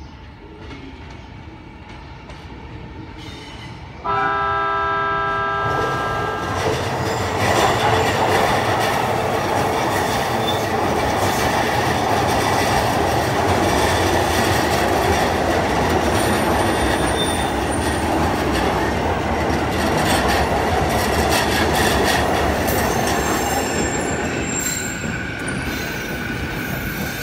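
A train horn sounds once for about two seconds, about four seconds in. Then a JR East E233-1000 series electric train runs slowly past over the pointwork, with steady wheel rumble and brief high wheel squeals, easing off near the end.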